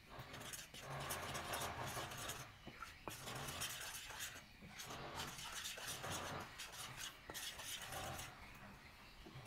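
Metal spoon stirring dry rice-flour mix in a glass bowl: repeated scraping strokes against the glass, with an occasional sharp clink.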